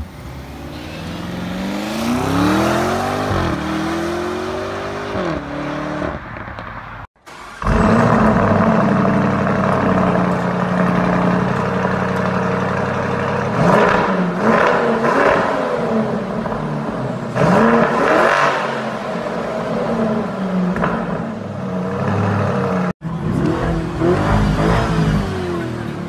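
Lamborghini Urus twin-turbo V8 exhaust in three takes. First it accelerates hard, its pitch climbing and breaking at a couple of upshifts. Then it runs at idle with sharp throttle blips at the quad tailpipes, and finally it revs again.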